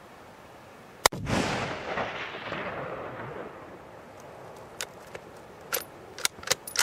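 A single hunting rifle shot about a second in, echoing off the mountainsides and fading away over about three seconds. A few sharp clicks and knocks follow near the end.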